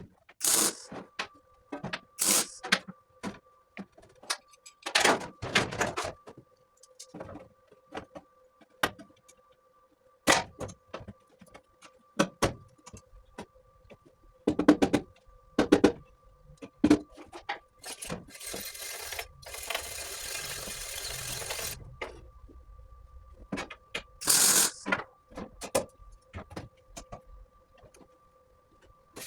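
Knocks and clatter of metal parts being handled and set up, over a faint steady hum that comes on about a second in. About 18 seconds in comes a few seconds of steady crackling hiss from MIG welding the aluminium tank.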